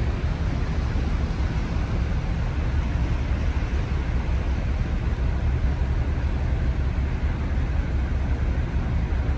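Steady low rumble and hum of a large car ferry's engines and machinery running while it lies at the berth.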